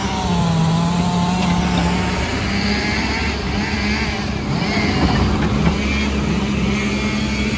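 A 14-ton tracked excavator fitted with a log grapple, its diesel engine running steadily close by as the machine works.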